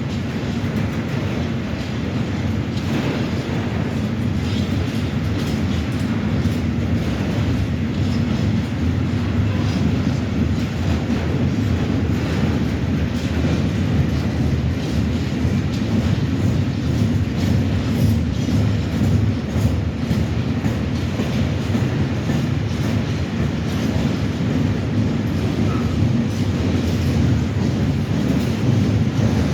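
A freight train of Eas open wagons rolls past steadily: a continuous low rumble with many quick clicks of wheels over rail joints, growing slightly louder toward the end.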